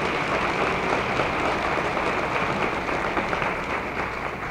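Audience applauding, the clapping fading near the end.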